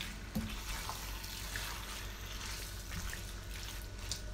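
Creamy shrimp pasta sauce simmering in a frying pan, with soft wet stirring from a spatula turning the pasta and a few light ticks.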